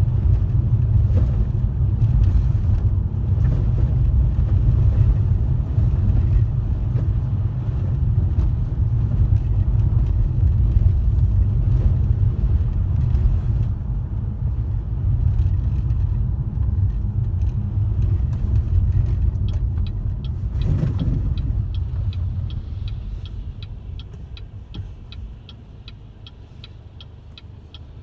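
Tyre and road rumble heard from inside a moving car, dying down as the car slows near the end. About two-thirds of the way in, the turn-signal indicator starts ticking steadily, about two to three clicks a second.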